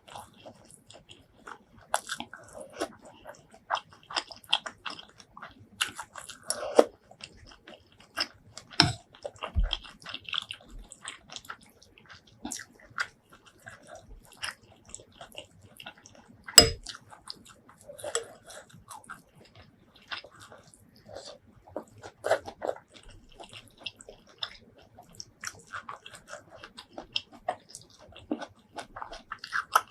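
Close-miked eating of shrimp curry and rice: steady irregular chewing and biting with crunching and wet clicks, and a few sharper knocks, loudest about nine and about sixteen seconds in.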